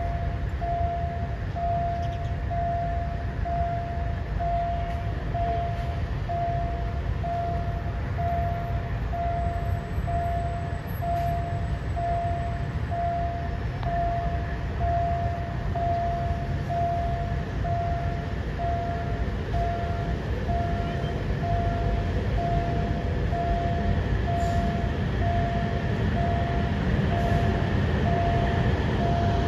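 Railway level-crossing warning signal sounding a steady repeated tone about once a second, over a low rumble of a KiHa 183 diesel railcar and traffic that grows louder near the end as the train nears the crossing.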